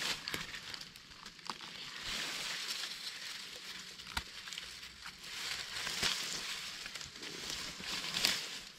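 Forest-floor leaf litter rustling and crackling as it is stepped on or handled, with scattered sharp clicks, the sharpest about four seconds in.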